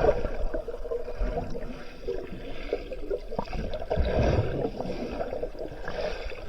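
Water sloshing and gurgling close by, with small irregular splashes over the steady rush of a waterfall.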